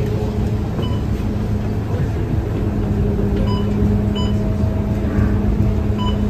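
Scania K230UB bus heard from inside the cabin, its five-cylinder diesel engine running at a steady idle with a low, even hum. A few short, faint beeps come and go.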